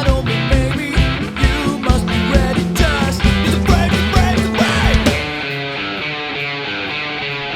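Rock music with a band instrumental: drums beat steadily under guitar. About five seconds in the drums drop out, leaving sustained held chords.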